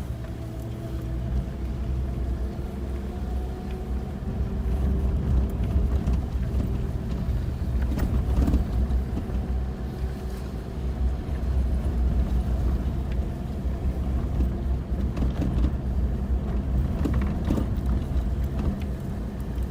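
Four-wheel-drive vehicle driving on a forest road, heard from inside the cab. A steady low engine and road rumble carries a faint engine hum, with scattered knocks and rattles from the track.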